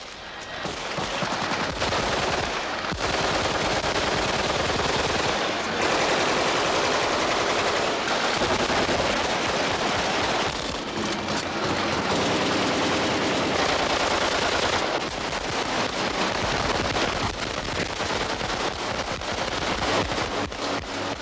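Sustained automatic-weapon fire, many overlapping bursts running almost without a break, starting about a second in.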